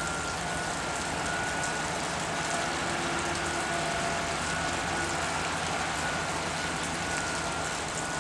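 Steady construction-site machinery noise with a constant high whine running through it.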